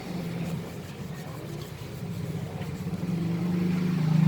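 An engine idling steadily. It is quieter for a second or two in the middle and grows louder again near the end.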